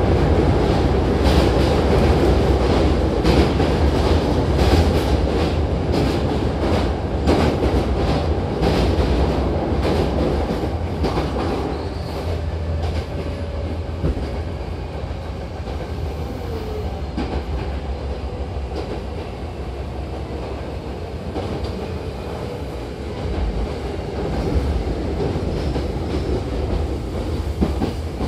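Running noise inside a Hankyu 7000-series electric train car: a steady low rumble with quick runs of wheel clacks over rail joints through the first dozen seconds, then a quieter, smoother rumble that grows a little louder again near the end.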